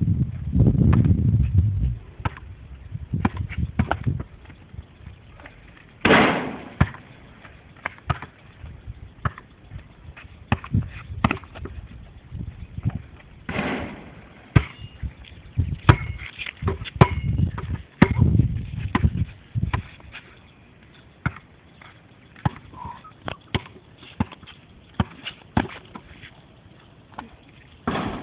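A basketball bouncing and striking hard surfaces, heard as irregular sharp knocks and thuds, with a few short spells of low rumbling noise.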